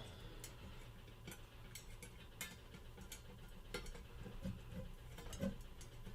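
Faint, irregular clicks and small knocks of a screwdriver working on the water filter's lid, with a few duller knocks about four and a half to five and a half seconds in.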